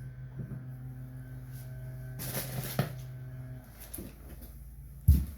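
Pliers working on a shower valve stem: light metal clicks and scraping, then one loud knock near the end. Underneath is a steady electrical hum that cuts off about three and a half seconds in.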